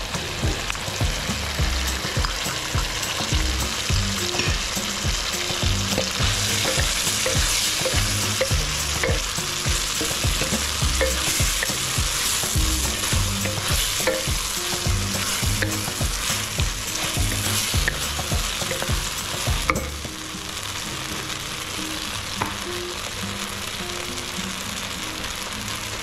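Food sizzling in a hot wok as a brown thickened sauce goes in over fried tofu and pork, with a wooden spatula stirring and scraping the wok. The sizzle eases somewhat about three-quarters of the way through.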